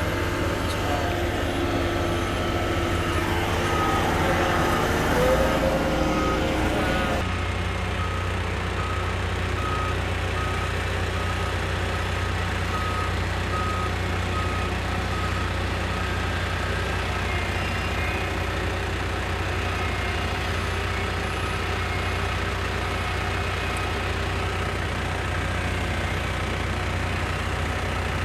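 Heavy vehicle engine running steadily, with a regular beeping like a reversing alarm through the first half.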